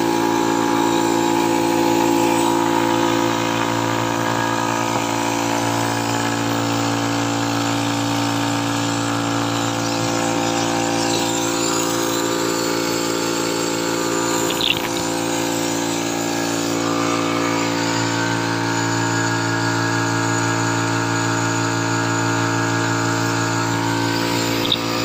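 Yong Heng electric high-pressure PCP air compressor running with a steady hum, a short click about fifteen seconds in.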